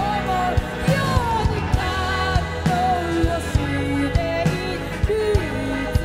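A live band performing a song: a woman singing the lead melody over electric guitar, electric bass and drums.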